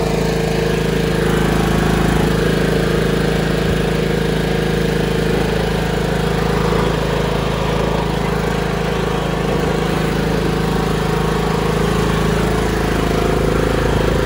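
Troy-Bilt riding lawn mower's engine running steadily, just jump-started from a second battery.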